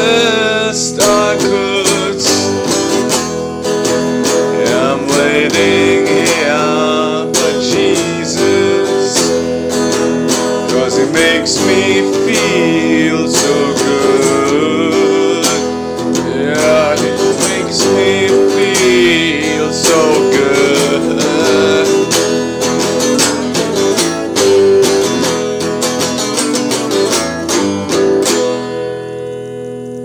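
A man singing over a strummed acoustic guitar. The strumming stops near the end and the last chord rings out and fades.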